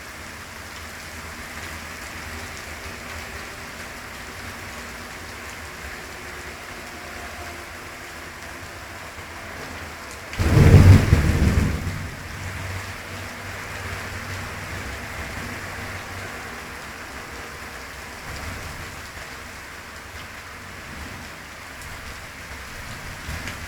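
Steady rain falling, with one sudden loud thunderclap about ten seconds in that rumbles away over the next few seconds.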